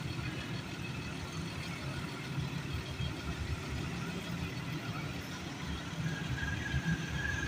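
Road roller's diesel engine running steadily with a low hum; a thin, steady high tone joins it about six seconds in.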